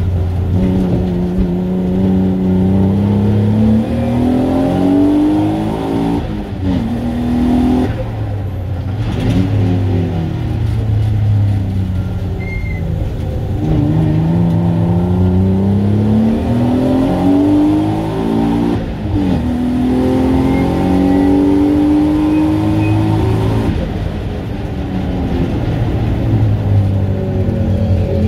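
Race car engine heard from inside the cockpit, pulling hard with the pitch climbing through the revs, then dropping sharply at each quick gear change, and falling away when the driver lifts off for corners, several times over.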